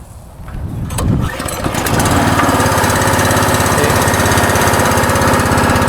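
Westinghouse WPX3200 pressure washer's single-cylinder gas engine starting about a second in, after a couple of clicks, then running steadily.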